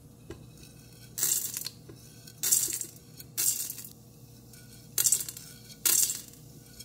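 Chana dal and urad dal tipped in small batches from a plate into hot oil in a stainless steel Instant Pot inner pot, where mustard seeds are already crackling: about five short sizzling, rattling bursts, a second or so apart.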